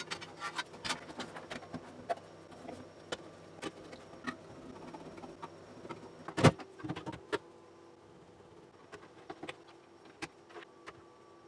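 Scattered clicks and light knocks of a steel ATX power supply casing being handled, screwed shut and fitted into a desktop PC chassis, with one sharper knock about six and a half seconds in.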